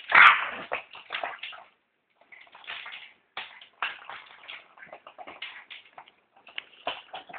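A small dog scrambling and spinning on a tile floor while playing with ping pong balls: irregular clicking and scuffing of claws and balls on the tiles, loudest in a burst just after the start.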